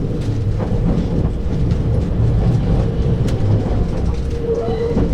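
JR East 651 series electric train running, heard inside the passenger car: a steady low rumble with a few faint clicks.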